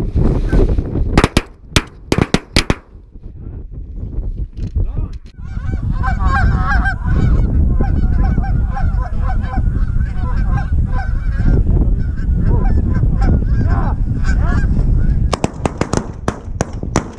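Canada geese honking over a goose decoy spread, with wind rumbling on the microphone. Near the end comes a rapid volley of shotgun shots, many in quick succession. A few sharp cracks also come in the first seconds.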